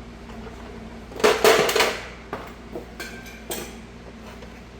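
Metal clinking and clanking as a rear brake caliper is worked into place over its bracket and its bolt holes are lined up. A quick cluster of sharp clanks about a second in is followed by a few lighter clicks.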